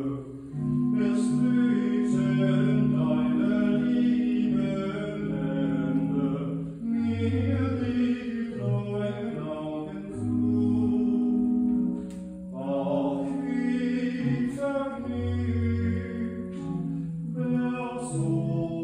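Church organ playing held chords and deep bass notes, accompanying singing.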